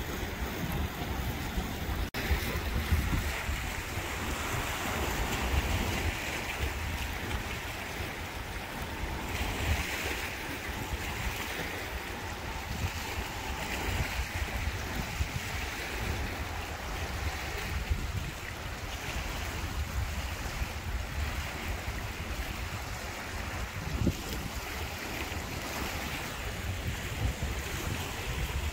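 Small waves washing and lapping against a rocky shoreline, the wash swelling and ebbing every few seconds, with wind buffeting the microphone as a low rumble.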